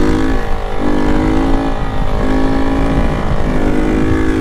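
Single-cylinder motorcycle engine with an aftermarket Toruna exhaust, modified to sound louder, running loud and steady under way. Its note dips briefly about three times.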